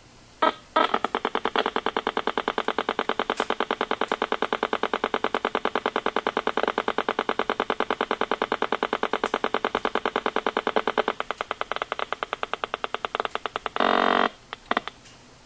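EMFields Acoustimeter RF meter's speaker putting out short buzzy pulses about ten times a second, the audible form of a nearby WiFi router's signal. Near the end the pulses give way to a brief solid buzz and two short blips as the iPad's WiFi is switched on.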